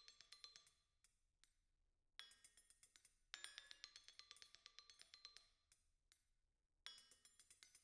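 A duet on a rack of spoons struck with mallets: quiet, rapid ringing clinks in quick runs of strokes, with two short pauses in the middle.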